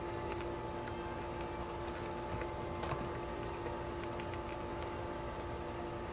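Faint taps and handling clicks from a marker organizer stand being folded and set upright, over a steady hum.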